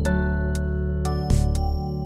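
Background music: sustained chords with a few light percussion hits, one with a bright cymbal-like wash about halfway through.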